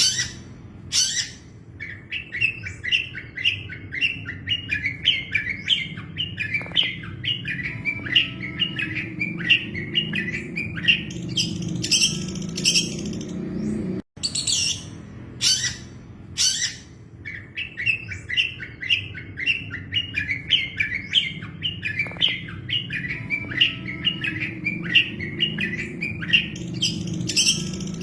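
Long-tailed shrike (cendet) singing a fast run of short chattering notes, several a second, with sharper calls at the start and again about twelve seconds in. The same phrase repeats after about fourteen seconds, as a looped song recording, over a low steady hum.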